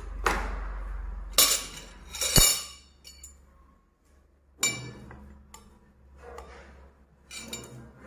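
Metal cutlery clinking against dishes on a laid table: a few sharp clinks that ring briefly, with softer handling noise between them.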